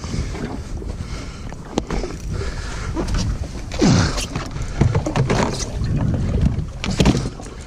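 Wind buffeting the microphone over water sloshing around a jet ski, with a few sharp knocks from the fish being handled on board.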